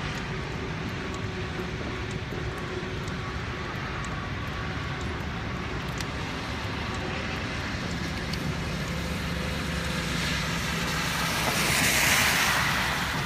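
Steady rushing noise of wind and passing traffic on a wet highway, with a louder hiss that swells and fades near the end.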